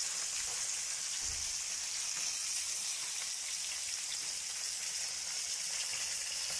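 Hot oil sizzling steadily in a shallow pan around three masala-coated whole fish frying, an even, unbroken high hiss.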